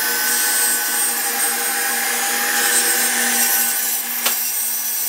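Track saw running steadily with a constant whine while cutting through a door panel along its guide rail. A single sharp click about four seconds in.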